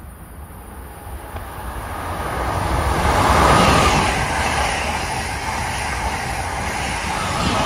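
Amtrak Acela high-speed electric trainset passing at speed. A rushing sound of wheels on rail and moving air swells as it approaches, is loudest about three and a half seconds in, then holds steady as the cars go by.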